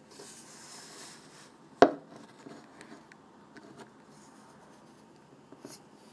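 A short hiss, then one sharp knock about two seconds in, followed by a few faint clicks and handling noises.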